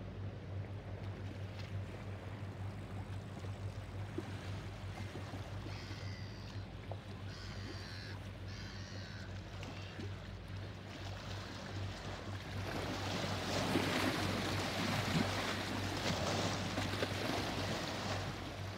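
Wake from a passing inland cargo ship lapping and splashing against the riverbank and pontoon, getting louder about two-thirds of the way in, over a steady low drone from the ship's engine. A bird calls three times near the middle.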